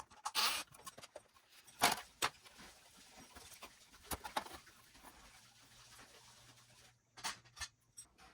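Small hard parts and tools being handled during a hard drive swap: a scatter of sharp clicks, knocks and light metallic rattles, loudest about two seconds in and again near the end.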